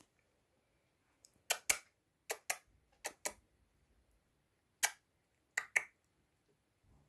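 Sharp clicks, mostly in quick pairs, about nine in all, with silence between them.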